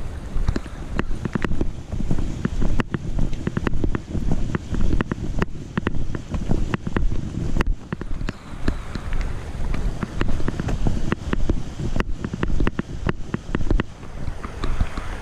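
A GoPro clipped to a backpack chest strap jostles with each walking step, giving a low rubbing rumble like wind on the microphone, with repeated knocks and footsteps on the trail about twice a second. A creek's rushing grows audible near the end.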